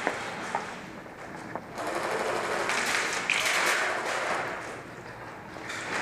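Airsoft guns rattling in rapid bursts, echoing in a large hall, with a few sharp clicks; the clatter is loudest from about two to four seconds in.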